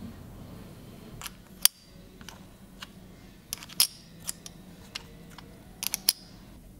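Small sharp clicks and ticks of enamelled number plates being handled and slotted into a perpetual flip calendar's plate frame, about a dozen in irregular succession. The loudest click comes about a second and a half in, and a quick run of three or four comes near the end.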